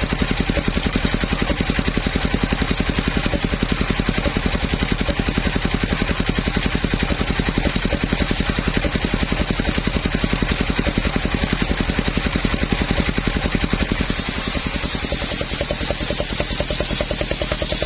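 Engine of a homemade circular sawmill running steadily with an even, rapid rhythmic beat. About fourteen seconds in, a high hiss joins and the low end thins.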